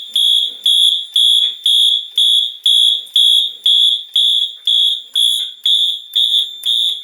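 Fire alarm horns on a Notifier AFP-200 demo board, sounding loudly in march-time coding: a high-pitched tone pulsing evenly about twice a second. The panel is in alarm after a pull station was activated.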